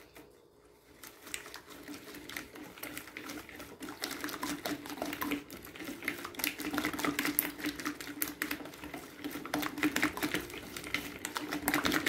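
Hand whisk beating egg, sugar and oil in a plastic bowl: a rapid, continuous clicking of the whisk wires against the bowl, starting about a second in.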